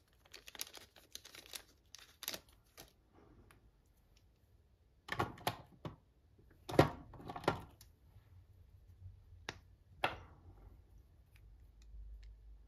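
A small plastic packaging bag being handled and opened, crinkling and rustling, with scattered sharp clicks and taps as a small plastic tool tip is taken out and handled. The loudest crinkles come about halfway through.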